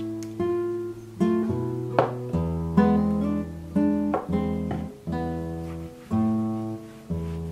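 Background music: a solo acoustic guitar plays plucked chords and melody. A new note or chord sounds every half second to a second, each ringing and then fading.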